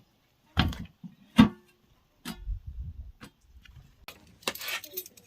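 Two sharp knocks less than a second apart, the second with a short ring, followed by low handling noise and a brief rustle near the end.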